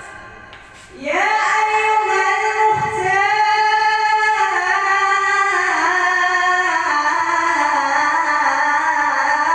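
A man chanting an Islamic ibtihal in a long, melismatic sung line. A phrase fades out, then about a second in a new phrase begins with an upward slide and is held on long notes with slow ornamented turns.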